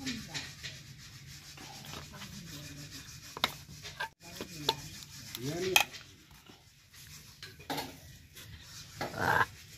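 Metal pestle mashing and stirring a chunky chutney in a metal pot, scraping and knocking against the pot's sides at an uneven pace.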